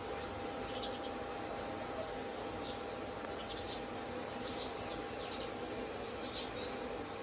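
Indian ringneck parakeet giving faint, short, high chirps every second or so over a steady background hum.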